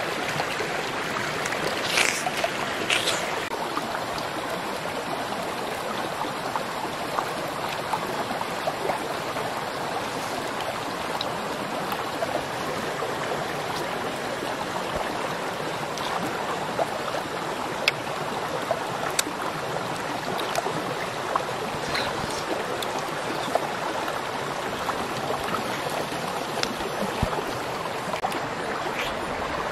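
Steady rush of flowing water, with a few small clicks and smacks from chewing soft fruit, the clearest about two and three seconds in.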